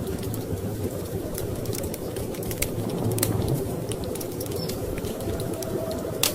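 Wood fire crackling in a fireplace, with frequent sharp pops and one louder snap near the end, over a steady low rumble of storm wind.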